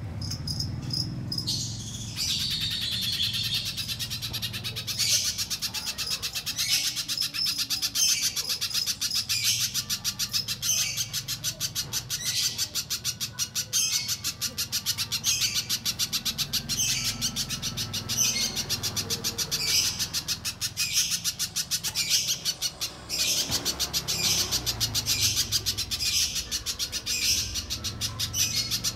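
Little spiderhunter calling a rapid, continuous string of high, sharp chirps, starting about two seconds in. Louder clusters come every second or so.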